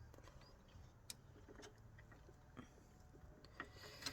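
Faint, scattered clicks and taps of a hand tool working at a radiator hose clamp, with a louder cluster of clicks at the very end.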